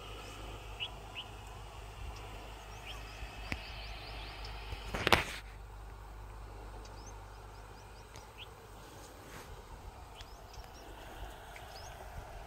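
Open-air ambience of scattered short bird chirps over a low wind rumble, with one loud brief whoosh about five seconds in.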